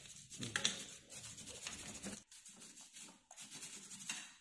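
A small bristle brush scrubbing a soapy bicycle chain in quick scratchy strokes, growing quieter and sparser about halfway through.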